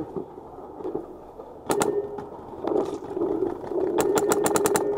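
Paintball marker shots: a pair about two seconds in, then a rapid string of about eight shots near the end, roughly ten a second.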